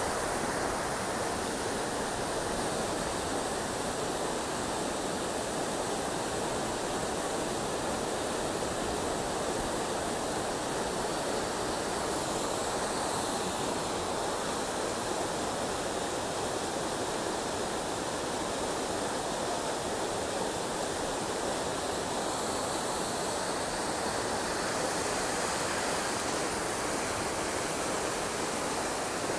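Rain-swollen, muddy river in flood rushing past in a strong, steady torrent of turbulent water.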